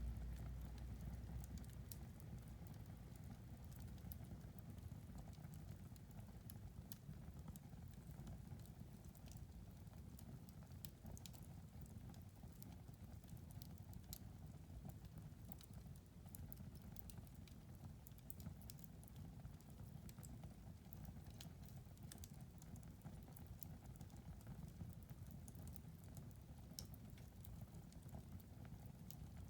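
Quiet wood fire crackling in a fireplace: irregular sharp pops and snaps over a steady low rumble.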